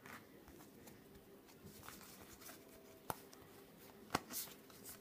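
Quiet handling of a stack of Pokémon trading cards, the cards sliding and rubbing against each other, with two short sharp clicks about three and four seconds in.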